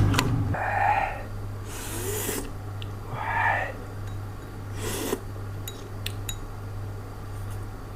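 Close-miked eating noises from someone chewing crunchy food: several short rasping, breathy bursts a second or so apart, with a few faint clicks over a low steady hum.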